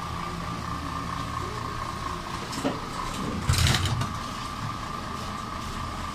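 Aquarium air pumps and filters running, with a steady low hum and a constant high whine. A brief rushing noise comes about three and a half seconds in.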